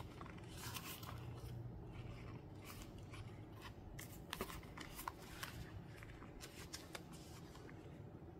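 A leather notebook cover and its paper refills being handled: light rustling of paper with scattered sharp little ticks and clicks.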